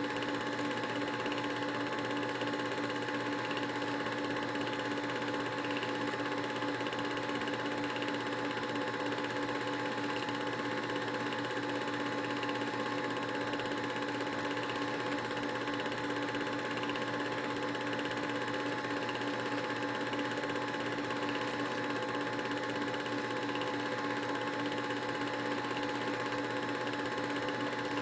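Film projector running with a steady mechanical whir and hum.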